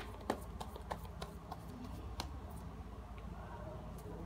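Tarot cards being handled and laid down on a fabric mat: a scatter of short, sharp clicks and taps, the loudest about a third of a second in and another a little after two seconds, over a steady low hum.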